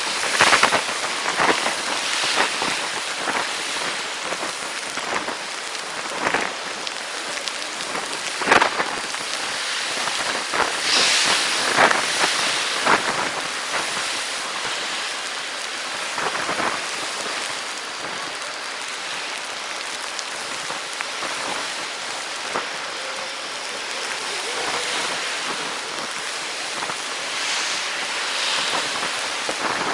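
Sleet and freezing rain falling in an ice storm: a steady hiss with many scattered sharp ticks of ice pellets striking nearby surfaces, swelling louder in gusts of wind for a while in the middle.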